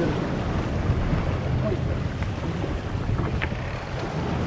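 Wind buffeting the microphone over water rushing along the hull of an Impulse 26 sailboat under way, a steady low rumble.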